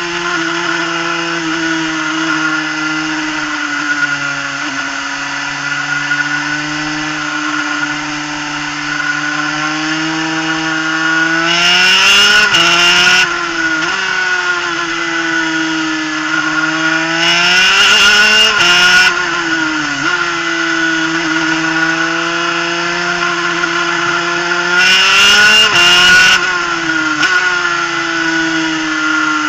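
Superkart's two-stroke engine running at high revs, around 10,000 rpm, at a steady pace. Three times the revs climb and drop back, each with a louder, harsher spell of a second or two.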